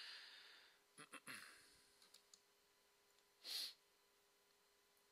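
Near silence with a faint steady hum, a few faint clicks about a second in, and a person's short breath about three and a half seconds in.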